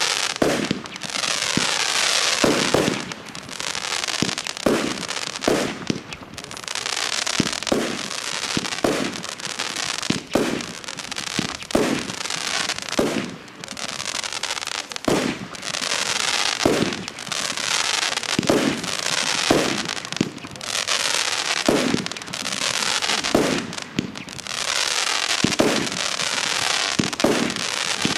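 TROPIC TB65 'Ecstasy' 64-shot firework battery firing shot after shot, roughly one a second, each a sharp thump as a tail launches. A steady hiss carries on between the shots.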